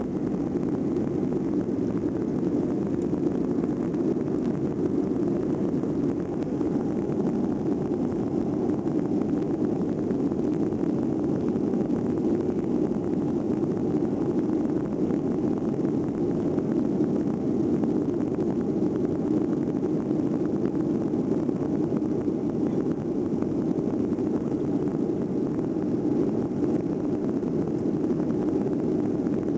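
Steady cabin noise of an airliner climbing out after takeoff: jet engines and rushing air heard from inside the cabin, a constant low-pitched rumble with no changes.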